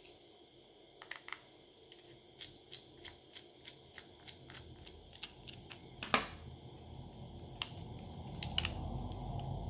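Run of small sharp clicks, about three a second, with a louder snap about six seconds in and a few more near the end: metal tweezers working the Samsung Galaxy S9's plastic inner housing free of its clips.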